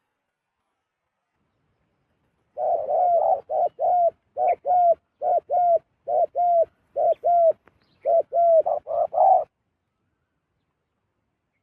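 Zebra dove cooing: a run of about fifteen short, quick coo notes, each dipping slightly in pitch, starting about two and a half seconds in and stopping abruptly about two seconds before the end.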